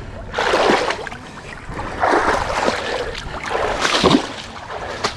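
Legs splashing through shallow, muddy water while wading, in three surges about a second and a half apart.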